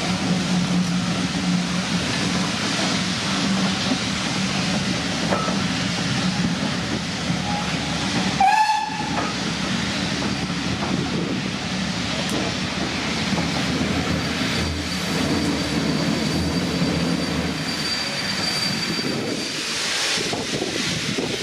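Steam locomotive and its train passing, a steady rush of exhaust, hiss and rolling wheels. A brief pitched whistle sounds about eight seconds in, and later a thin high steady tone runs for several seconds.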